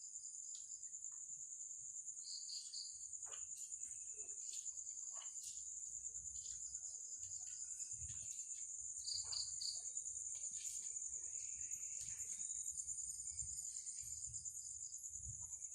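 Night insects, likely crickets, trilling in a continuous, high-pitched chorus. Short bursts of quicker chirps at a slightly lower pitch recur every several seconds.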